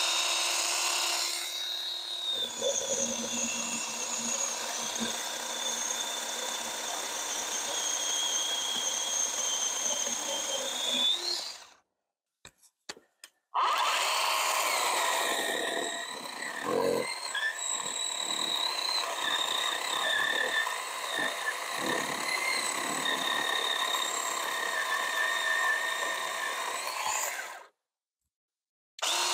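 Ryobi 18-volt 10-inch cordless chainsaw running and cutting through a log, its motor giving a steady high whine, stopping after about eleven seconds. After a short silence with a few clicks, an Amazon-brand 20-volt 10-inch cordless chainsaw runs and cuts through the log for about fourteen seconds, then stops.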